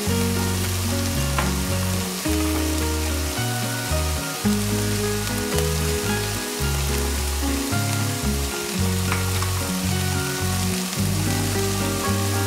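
Minced beef sizzling steadily as it fries in an open pan, a constant hiss, under background music with a changing low bass line.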